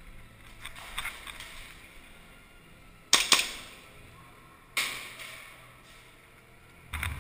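Airsoft gun firing: two sharp shots about a quarter second apart a little after three seconds in, then a third, quieter shot about a second and a half later that trails off in the room.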